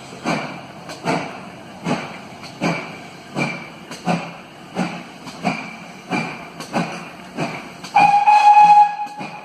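Steam locomotive working at a slow, steady beat, its exhaust chuffing about once every three-quarters of a second. Near the end a steam whistle blows one steady note for about a second and a half.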